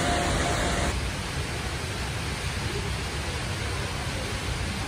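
Steady rushing of a tall indoor waterfall, the Rain Vortex, pouring down into its pool. About a second in it drops a little in level.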